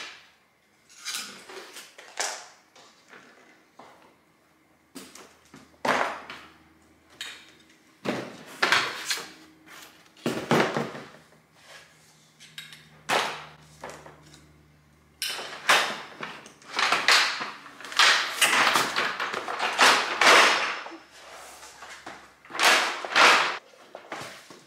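Diggs Revol dog crate, a plastic-framed wire-mesh crate, being unfolded and set up: repeated clunks, clicks and rattles as its folding sides are lifted and pushed into place, coming faster and louder in the second half.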